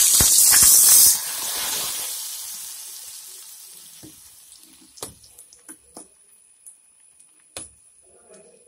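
Ghee-fried cashews, raisins and coconut pieces tipped from a hot pan into payasam: a loud sizzle for about a second that dies away over the next few seconds. Then a ladle stirring the payasam, with a few light knocks against the pot.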